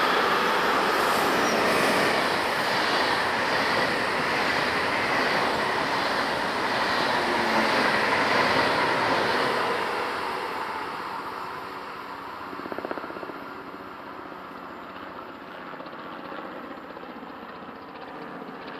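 A train running past on the line, loud for about the first ten seconds, then fading steadily as it moves away, with a short rattle during the fade.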